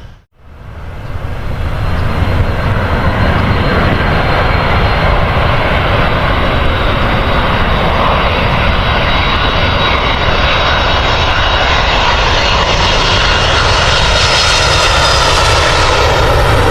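Jet airliner engines running as a loud, steady noise. The sound grows brighter and slightly louder in the last few seconds, as the aircraft comes closer.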